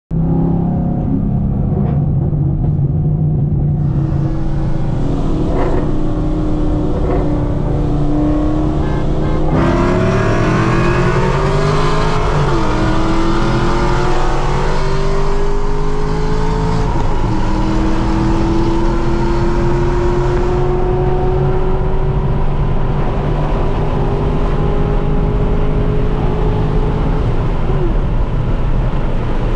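C6 Corvette V8 with aftermarket headers and intake, heard from inside the cabin. It runs steadily for several seconds, then about ten seconds in goes to full throttle and revs up through the gears, with upshifts about three and seven seconds later and a long pull in the last gear.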